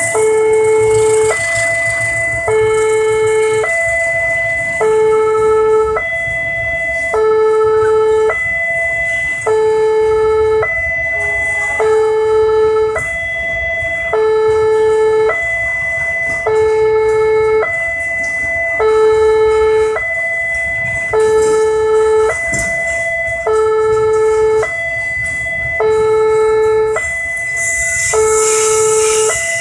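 Railway level-crossing alarm sounding its two-tone electronic warning, alternating between a lower and a higher tone about a second each, over and over. Underneath it run the wagons of a passing container freight train, with a louder hiss near the end.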